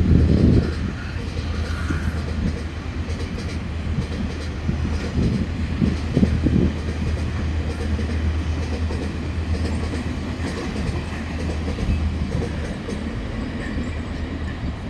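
Freight train of loaded flatcars rolling past on the track, its wheels clacking in an uneven rhythm over a steady low hum. It is louder for the first half second, then holds an even level.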